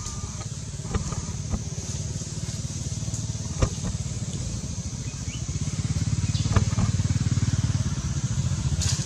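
An engine running steadily as a low, pulsing rumble, growing louder about six seconds in, with a few sharp clicks over it.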